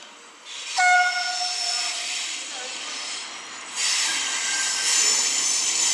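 FS E.652 electric locomotives coming into the station: one steady horn blast starts about a second in and lasts under two seconds. From about four seconds in, loud wheel-on-rail noise with a high squeal builds and carries on.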